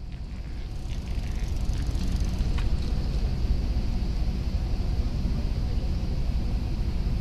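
Steady low rumble of distant city traffic, fading in over about the first second and a half, with a few faint ticks.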